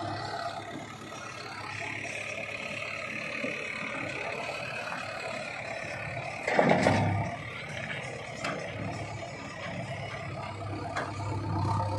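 JCB backhoe loaders' diesel engines running steadily at work. About halfway through comes one short, loud whoosh falling in pitch.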